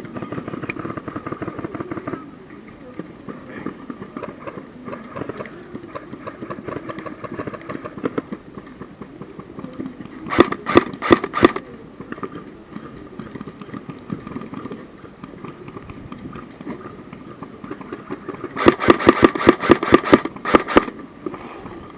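Airsoft guns firing in rapid bursts: a short volley about ten seconds in and a longer, louder string of quick shots near the end, with scattered shots at the start.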